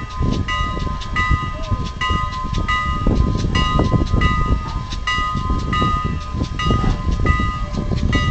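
A train's bell ringing steadily about twice a second over the low rumble of the train.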